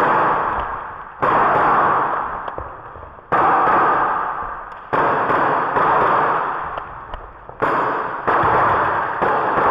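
Gas blowback airsoft pistol fired about seven times at uneven intervals, each shot a sharp crack that fades slowly in a reverberant sports hall.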